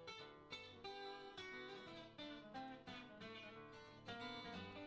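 Faint background music of plucked acoustic guitar, picking a quick run of notes.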